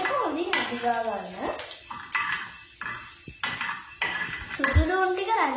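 Metal spoon stirring and scraping in a nonstick frying pan, clicking against the pan several times, over a light sizzle of chopped onions frying in oil. A voice is briefly heard at the start and near the end.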